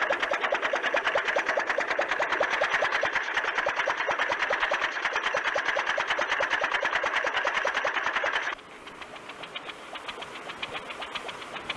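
Small engine of an early horseless carriage, a Ford Quadricycle, running with a rapid, even chugging. About eight seconds in it drops suddenly in level and carries on more quietly.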